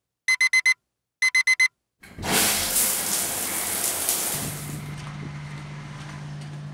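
Electronic alarm beeping in quick groups of four short high beeps, stopping after about two seconds. Then a loud hiss starts and slowly fades, and a steady low hum comes in about halfway through.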